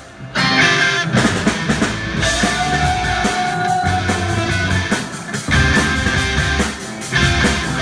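Live rock band playing: electric bass, electric guitar, keyboard and drums, with a woman singing a held note about two seconds in.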